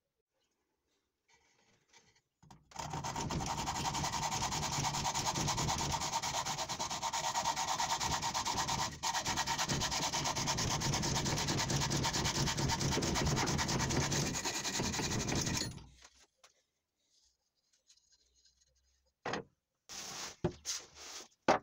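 Hacksaw sawing steadily by hand, a continuous rasping for about thirteen seconds that stops a few seconds before the end. A few short knocks follow near the end.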